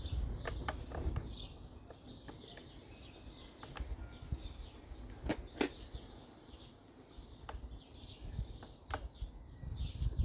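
Birds chirping in the background, with scattered light clicks and taps of small engine parts being handled, the sharpest about halfway through.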